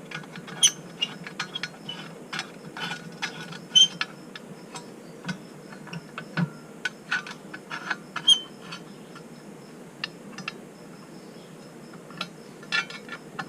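A screw being turned by hand into a motorcycle footboard's padding: irregular clicks and a few short squeaks as the screw goes in.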